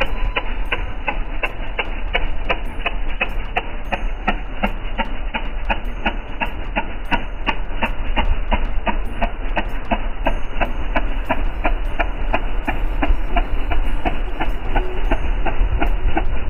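Boat engine running steadily, with an even, rhythmic knocking about three to four times a second over a low hum.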